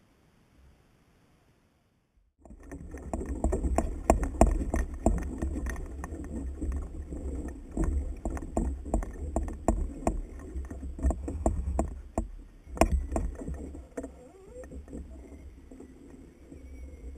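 Irregular knocking and clicking with a low rumble from a kayak angler fighting a hooked fish: rod, reel and kayak hull being worked. It starts suddenly about two seconds in after near silence and eases off near the end.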